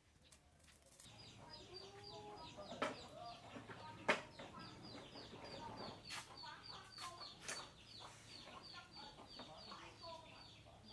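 Chickens clucking, over a steady run of high, short falling peeps about four a second. A few sharp knocks come through, the loudest about four seconds in.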